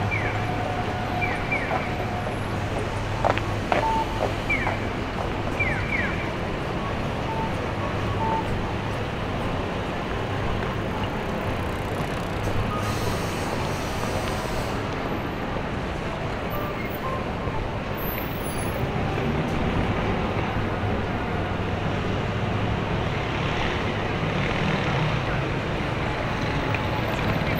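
Busy city street traffic: a steady low hum of vehicles running, with a few sharp clicks and short high squeals in the first several seconds.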